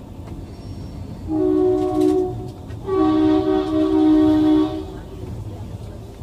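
Train horn sounding two blasts, a shorter one and then a longer one of about two seconds, each a steady chord of several notes, over the constant low rumble of the train running.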